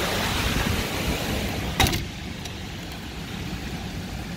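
Rushing wind noise from a severe windstorm, with the gusts buffeting the microphone. Just under two seconds in a single sharp knock sounds, and after it the storm noise is quieter and more muffled.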